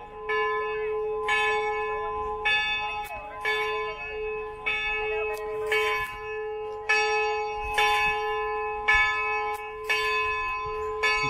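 Church bell tolling, struck about once a second, its deep tone ringing on between strikes: the bell calling people to mass.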